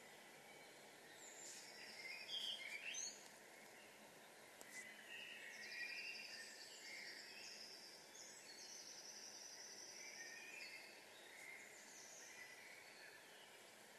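Faint dawn chorus of several songbirds: repeated high trills and short phrases over a steady background of distant noise. A louder rising call comes about two and a half seconds in.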